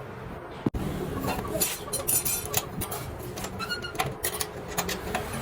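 Metal tools and engine parts clinking, tapping and knocking against each other in quick irregular strikes, some with a short ring. There is a brief gap in the sound about three-quarters of a second in.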